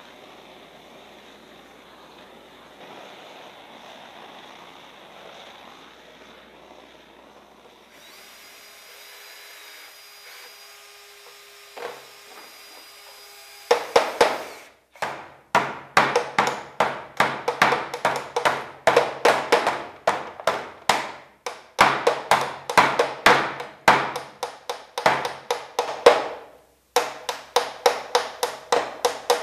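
A steady hiss, then a low hum. From about halfway, a saw cutting through wood in quick strokes, about three a second, in runs broken by short pauses.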